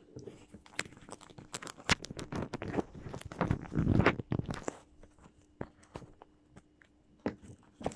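Handling noise of a phone camera being moved and set down on a carpeted floor: a close run of clicks, taps and rustles, busiest in the middle, then a few scattered clicks.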